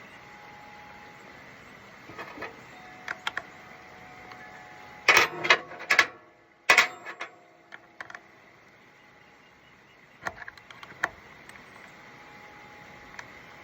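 Metal hand tools clinking and clattering: a few light clicks, then a loud burst of rattling clanks about five to seven seconds in, and a few more clicks later.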